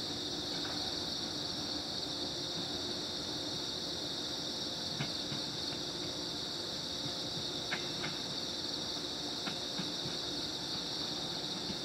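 Steady high-pitched chorus of night insects. Beneath it are a faint low hum and a few light clicks, about five seconds in and twice more later. These come from a JR Kyushu 415 series electric train creeping slowly toward the platform.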